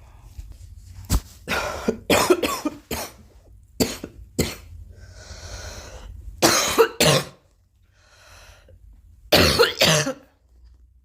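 A girl coughing repeatedly in short fits of several sharp coughs each, with quieter breaths between the fits.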